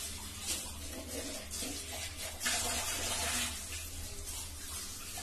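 Onion pakoda batter sizzling and bubbling in hot groundnut oil as handfuls are dropped into the kadai. The hiss swells with each new drop and is loudest a little past the middle.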